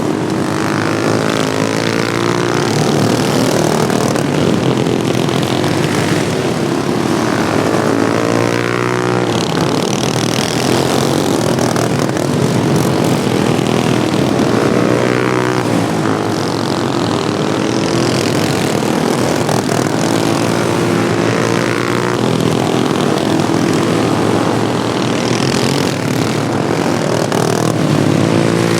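Several modified Wheel Horse racing lawnmowers running hard at full throttle. Their engine notes overlap and rise and fall in pitch every few seconds as the machines pass and rev through the turns.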